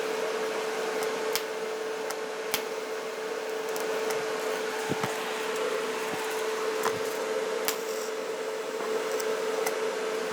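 TIG welding arc on steel sheet metal, a steady buzzing hiss with a constant hum, with a few faint ticks, as filler rod is fed in to fill drilled trim holes.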